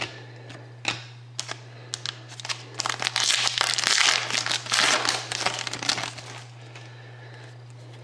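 Crinkling and crumpling of a trading-card pack wrapper, loudest for about three seconds in the middle, with light clicks of cards being handled before and after.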